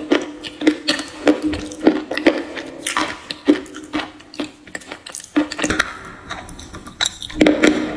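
Teeth biting and chewing a piece of soft grey stone, with sharp crisp crunches about twice a second.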